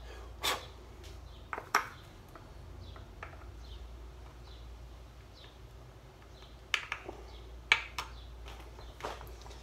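Sharp clicks and knocks of a small screwdriver working at a screw inside a PVC prop-rifle barrel. There are a few near the start and a cluster in the second half. The screw will not turn.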